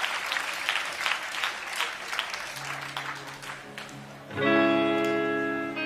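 Audience applause tapering off, then a guitar chord is struck about four seconds in and rings on.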